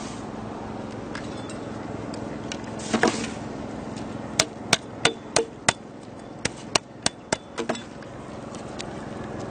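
A series of about ten sharp knocks, like hammer blows, coming irregularly over a few seconds after a first heavier knock, over a steady low hum.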